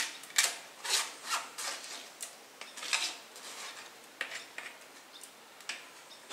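A spoon scraping wet fruit pulp off a plastic mesh sieve and clinking against an aluminium pan beneath it, in a string of short, irregular scrapes and clicks.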